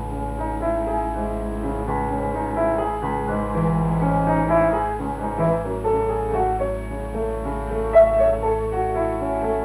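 Film-score background music led by piano, with a steady low hum underneath and a brief click about eight seconds in.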